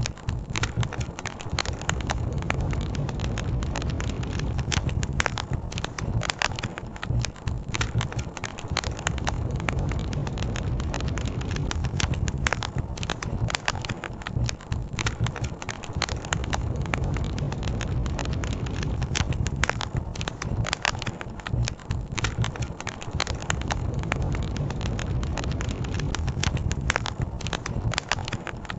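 Campfire crackling, with frequent sharp irregular pops, over a steady low rushing of river water.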